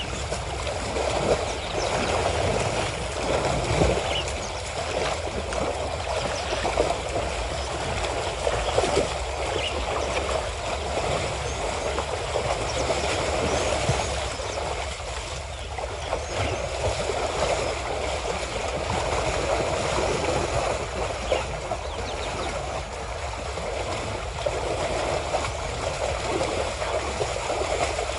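African elephants wading in a waterhole, water splashing and sloshing irregularly as calves play in the shallows, over a steady low rumble.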